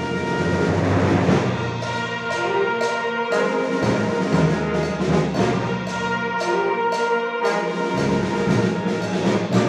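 Wind band of brass and saxophones playing a lively zydeco-style piece over a steady beat.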